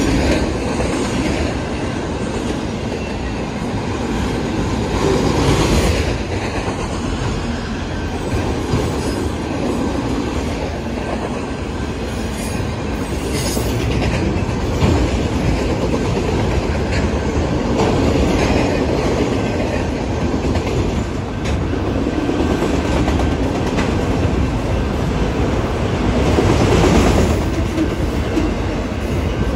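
Autorack freight cars rolling past close by: a steady rumble of steel wheels on rail, with a rhythmic clickety-clack as the trucks cross the rail joints.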